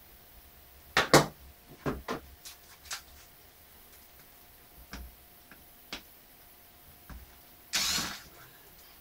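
Hand tools being handled against a laptop's plastic screen bezel: scattered clicks and knocks, the loudest pair about a second in, and a short scraping rustle near the end.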